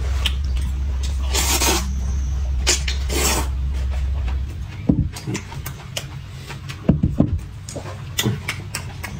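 A man slurping noodle soup from a metal bowl: several loud, noisy slurps, then a few sharp knocks and clicks, over a steady low hum that stops about halfway through.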